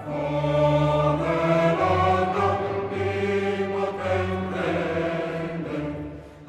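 Music: a choir singing long held chords over a sustained low bass, fading away near the end.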